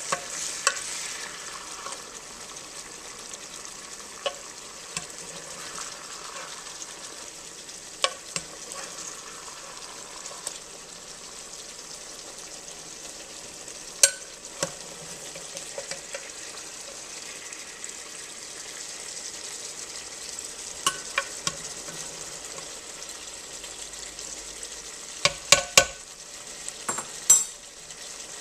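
Meatballs frying in hot grease in a pan with a steady sizzle. Now and then a utensil clicks sharply against the pan as they are stirred, with a quick run of clicks near the end.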